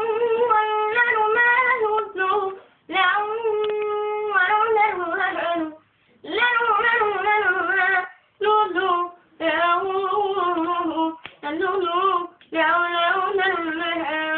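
A boy's high, unbroken voice singing an unaccompanied song with wavering, ornamented melody lines, in phrases of a few seconds separated by short breaths.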